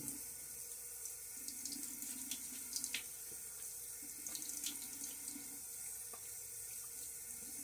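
Bathroom sink tap running steadily into the basin, with a few small splashes.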